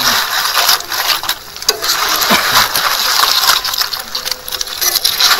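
Shellfish cooking in a boiling pot: a steady hiss with scattered clicks and clinks of shells.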